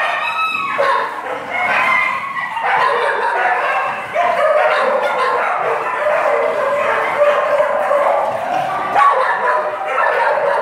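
Many kennelled dogs barking, yipping and whining together in a continuous, overlapping chorus.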